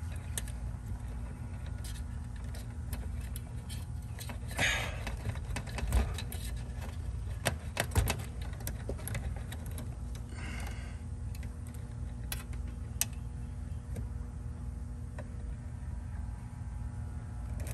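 Small clicks and rattles of wires and spade terminals being handled at a heat pump's contactor and capacitor, with two short rustles about a third and two thirds of the way in, over a steady low hum.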